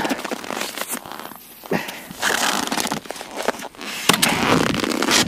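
Crunching and crackling of ice and snow at an ice-fishing hole as it is worked by hand and with a scoop, with scattered sharp clicks and uneven bursts of scraping noise.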